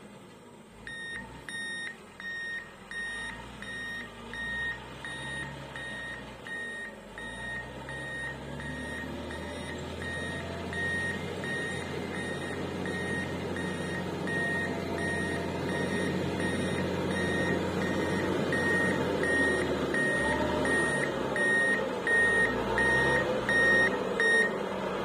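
Motor grader's reversing alarm beeping at about one and a half beeps a second, over the grader's diesel engine running. The engine grows louder as the machine backs closer, and the beeping stops just before the end.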